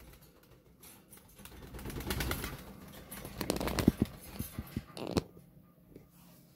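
Faint sounds from a pet pigeon in its cage, mixed with rustles and knocks as the phone is moved about midway.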